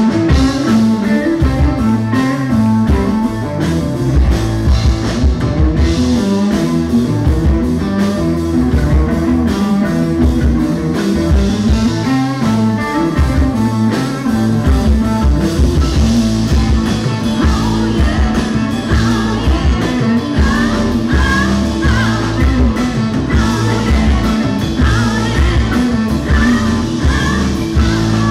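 Live rock band playing with drum kit, bass and electric guitar, and singing over it.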